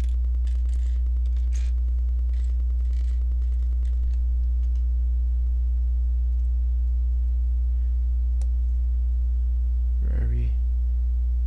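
Steady low electrical hum throughout, with faint scattered clicks of LEGO plastic pieces being handled and pressed together over the first few seconds and one sharper click about eight seconds in.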